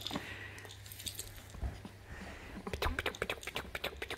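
Soft rustling and scuffing from a baby monkey scrabbling at a plush toy and cloth, with a quick run of small clicks from about three seconds in.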